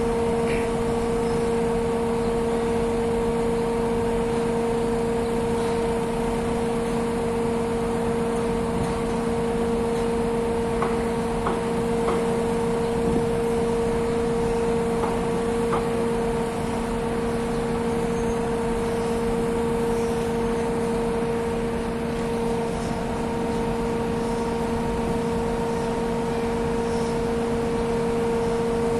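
Large crawler crane's diesel engine running steadily while hoisting a heavy load: a constant droning hum with a steady pitched tone in it.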